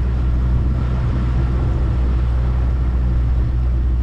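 The motor of a small open boat running steadily while the boat is underway, with water rushing along the hull. A steady low hum sits under an even rush of noise.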